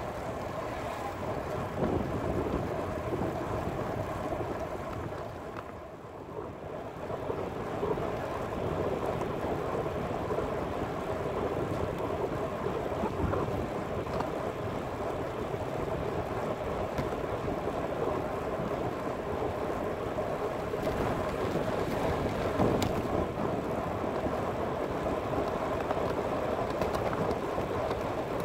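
Steady rushing noise of a bicycle riding on an asphalt path: wind buffeting the camera's microphone over tyre and road noise, easing briefly about six seconds in.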